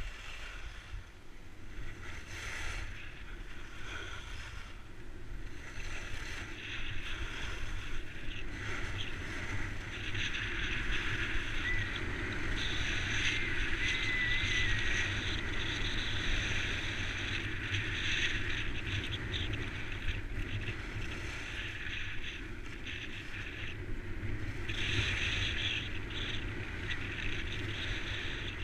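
Skis hissing and scraping over groomed snow during a downhill run, with wind rumbling on the microphone. The scraping grows louder in the middle of the run and again near the end.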